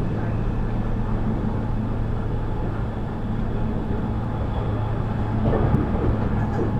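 MS61 electric multiple unit running on RER A, a steady hum over a continuous rumble, briefly louder about five and a half seconds in.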